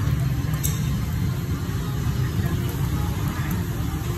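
Steady low engine rumble that runs on without change.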